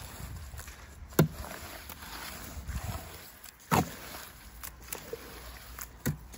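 Wet clay-and-straw mud being churned with a hoe in a wheelbarrow: sloshing, squelching strokes, with three sharp louder strokes about two and a half seconds apart.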